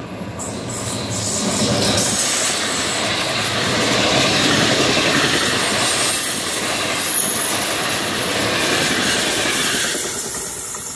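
Electric regional passenger train passing at speed. The rumble and clatter of its wheels on the rails builds over the first two seconds and runs loud and steady as the coaches go by, with a thin high wheel squeal partway through, then eases off near the end as the last coach clears.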